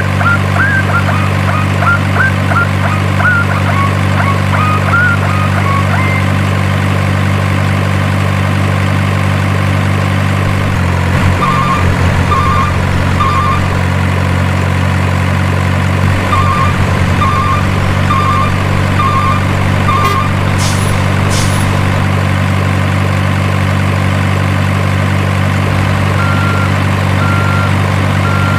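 Steady diesel truck engine sound, likely from a radio-controlled model truck's sound module, idling with a flat, unchanging drone. Groups of short reversing beeps come in twice in the middle, and a regular beeping starts near the end.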